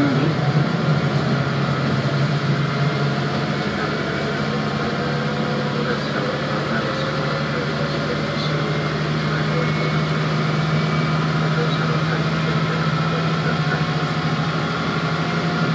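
Diesel railcar heard from inside the passenger cabin while under way: a steady low engine drone with the running noise of the train.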